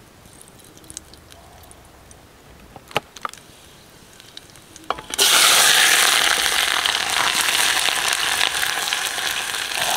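Sliced onions hitting hot cooking oil in a steel pot over a campfire: a sudden loud sizzle starts about halfway through and keeps going steadily. Before it, a few light clicks.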